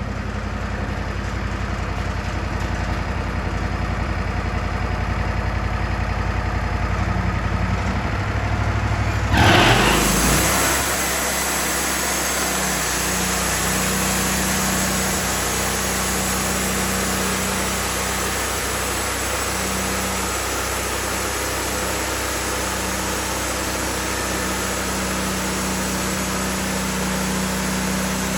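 Wood-Mizer LT40 portable band sawmill running steadily. About ten seconds in there is a sudden loud burst, after which the sound carries on brighter and higher-pitched with a steady hum.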